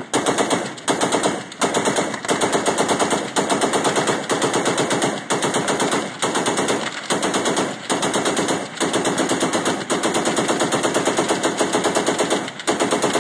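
Machine-gun fire in long rapid bursts with brief pauses between them, the rounds striking the water around a burning boat.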